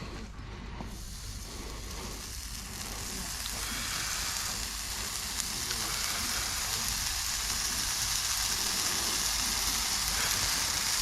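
A hot steel horseshoe sizzling: a steady high hiss that builds over the first few seconds, holds, then dies away near the end.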